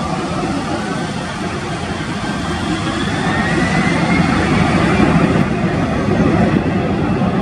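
Jet engines of a twin-engine airliner running as it rolls along the runway, a faint whine rising in pitch and the sound growing louder from about three seconds in.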